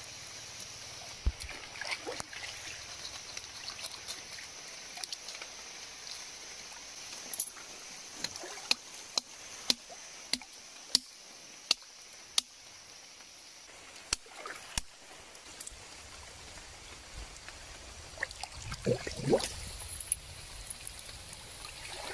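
Shallow stream water running and trickling. A knife scrapes a singed carcass in a string of sharp strokes, about one every two-thirds of a second, through the middle. Near the end the carcass splashes in the water.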